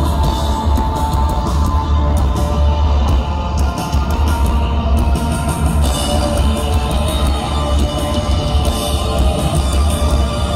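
Post-punk band playing live through a PA, heard from within the crowd: drums, guitar and keyboard over a heavy bass low end.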